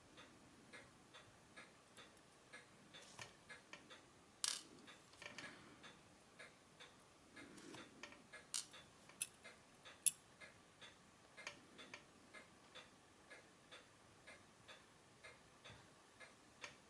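Faint, steady mechanical ticking, about two and a half ticks a second, with a few louder sharp clicks of small watchmaker's tools on the metal movement parts, the loudest about four and a half and ten seconds in.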